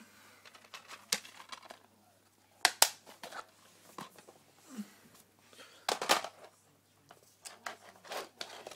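Plastic DVD cases being handled and shuffled on a tiled floor: an irregular string of clicks and clatters, with two sharp knocks about three seconds in and a cluster of clatters around six seconds.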